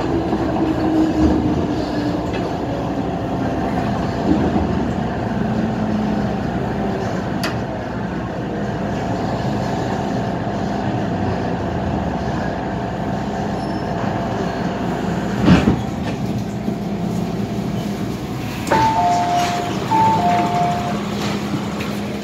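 MTR Kwun Tong Line M-Train heard from inside the car while it runs into a station: steady running rumble with a motor tone falling in pitch over the first few seconds. A single sharp thump comes about fifteen seconds in. Near the end a two-tone chime, a higher note then a lower one, sounds twice.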